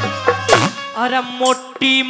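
Instrumental break in Haryanvi folk music: a drum stroke about half a second in, then a melody of held notes that step up and down.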